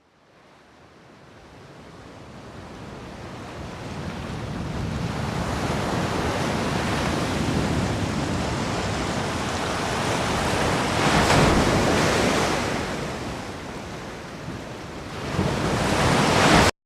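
Surf and wind: an even rushing noise that fades in over several seconds, surges about eleven seconds in and again near the end, then cuts off abruptly into silence.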